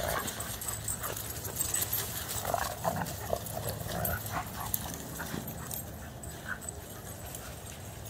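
Dogs at play in a group, giving short vocal sounds, mostly in the first half, over scattered light clicks.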